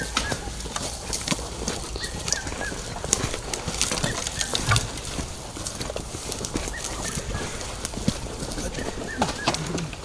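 Irregular crunching and snapping of footsteps through dry leaf litter and brush, with a few short bird chirps.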